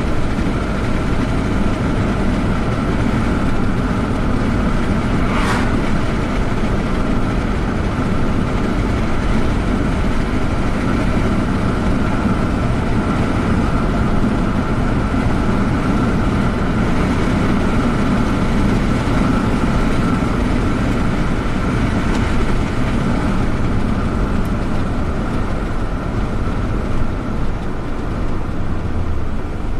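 Steady road and drivetrain noise inside the cabin of a Toyota Camry Hybrid being driven, with a faint high steady tone underneath and a single click about five and a half seconds in.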